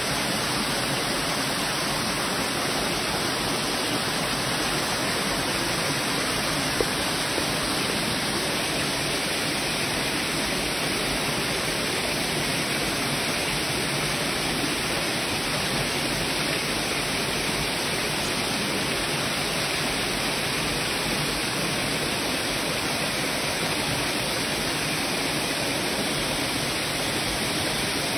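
Small cascade of water pouring over a rock ledge into a shallow stream pool, a steady, even rushing.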